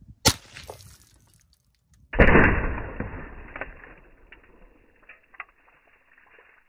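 A single sharp shot from a high-powered air pistol firing a 161-grain slug. About two seconds in comes a louder, muffled burst as a liquid-filled plastic water bottle is blown apart; it dies away over about two seconds, with a few small ticks after it.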